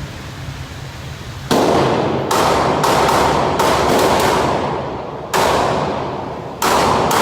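A .38 revolver fired five times at an uneven pace, each shot followed by a long fading tail, with fainter shots from other shooters in between.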